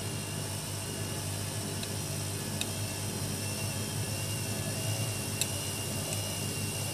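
AEG Lavamat 6410 washing machine running: a steady motor whir and hum with a thin high whine, and a couple of faint clicks partway through.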